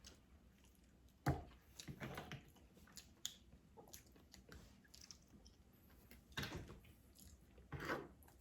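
A person chewing seafood-boil food close to the microphone: irregular wet smacks and clicks, the sharpest about a second in and a few more in the second half.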